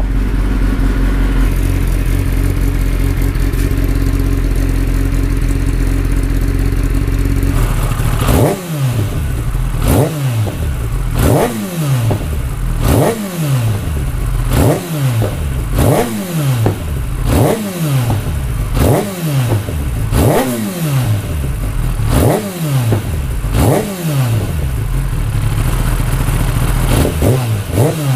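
Kawasaki Ninja ZX-10R's inline-four engine idling while warmed up, then from about eight seconds in revved in quick throttle blips about every second and a half, each one rising and falling sharply in pitch.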